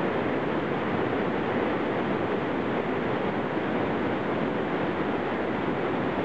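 Whitewater rapids on a small rocky creek, water rushing steadily over shale ledges in one dense, unbroken rush.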